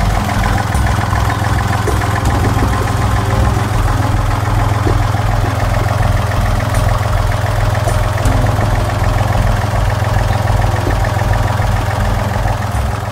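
Sailboat's inboard engine idling steadily, with an even low throb, just after a service of its filters, coolant, heat exchanger and raw-water impeller.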